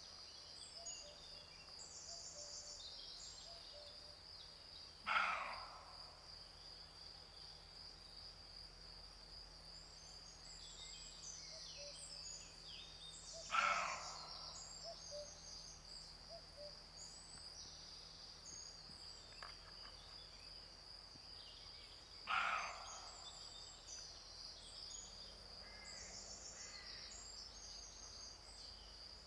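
Male roe deer in rut barking: three short, loud barks, about eight to nine seconds apart.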